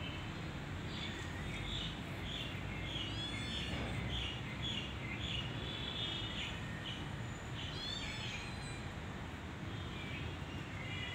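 Birds chirping: a run of short repeated notes about twice a second, with a few quick sweeping calls around the middle, over a steady low background noise.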